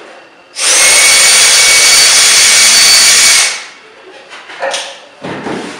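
Cordless drill running steadily for about three seconds as it backs a screw out of a wooden backing plate, then stops. A few light knocks follow near the end.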